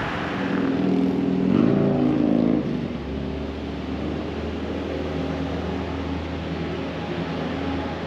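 Street traffic: a car's engine note rises as it accelerates past over the first couple of seconds, then a steady low engine hum carries on.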